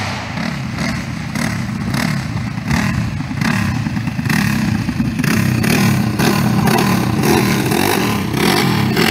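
A racing go-kart's twin Predator 212 single-cylinder four-stroke engines running under throttle, growing louder as the kart comes closer.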